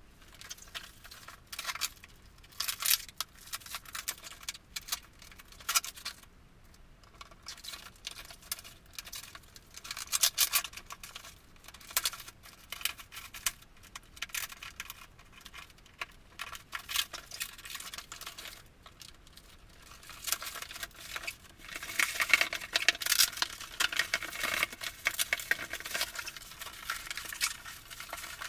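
Packaging being unwrapped by hand for an unboxing: irregular crinkling, rustling and tearing with small clicks and taps. It comes in uneven bursts and is densest and loudest about three quarters of the way through.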